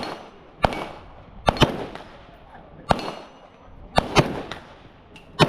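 Airsoft pistol shots: about eight sharp reports at an uneven pace, some in quick pairs, fired during a two-gun shooting drill.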